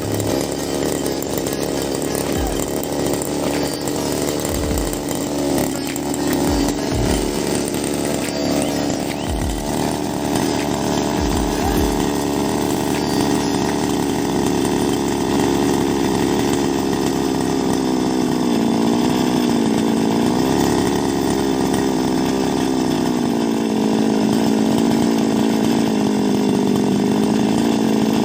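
Small two-stroke grass cutter (brush cutter) engine running steadily, its pitch dipping slightly a few times in the second half. A few low thumps come in the first dozen seconds.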